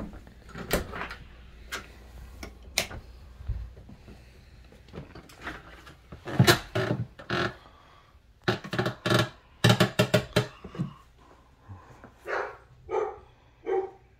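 A dog barking in short bursts, several clustered close together in the middle and three shorter, higher barks near the end, after a few sharp clicks and knocks at the start.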